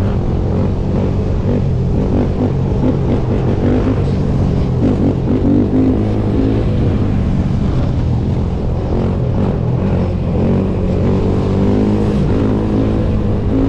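Sport quad's engine running on the road under throttle, its pitch rising and falling as the rider revs and eases off.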